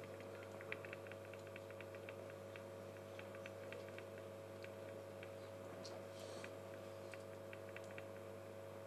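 Low steady electrical hum from the lecture-hall sound system, with faint scattered ticks and clicks, several a second for the first few seconds and then now and then.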